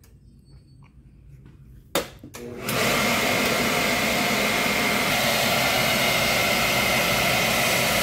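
A click about two seconds in as the burner control is reset from a pilot flame failure lockout, then the Beckett commercial gas burner's combustion air blower starts and runs steadily with a thin whine over the rush of air: the pre-ignition purge beginning.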